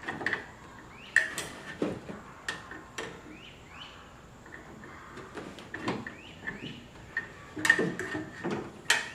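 Small metal lock linkage rods and their plastic clips clicking and clinking against the door lock actuator and the door's inner metal panel as they are fitted by hand. Irregular clicks and knocks, loudest near the end, with a few short squeaks about three seconds in.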